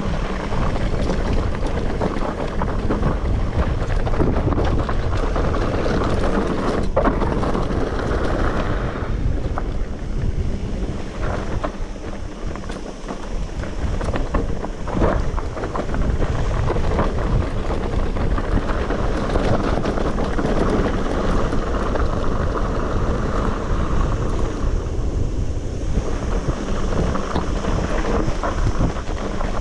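Wind buffeting the microphone over the crunch and rattle of mountain bike tyres rolling down a loose, rocky gravel track, with a couple of sharp knocks from stones or the bike.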